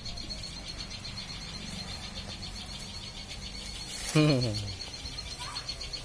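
Steady, high, pulsing chirring of insects in the background vegetation. About four seconds in, a short low vocal sound falling in pitch is the loudest moment.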